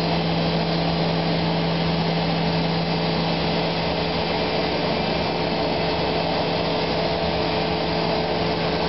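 3D CNC milling machine's spindle and end mill cutting polyurethane foam. It runs steadily, a constant low hum with a higher tone over an even hiss, with no change in pace.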